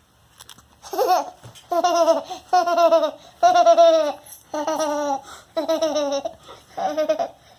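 A baby making the same vocal sound over and over, seven short pitched calls about a second apart, each falling a little in pitch, laugh-like.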